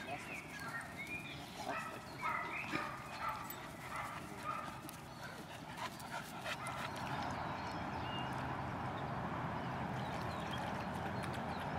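Dogs at play giving short, high yips and whines in the first half, among light clicks and scuffles, then a steady rushing hiss from about seven seconds in.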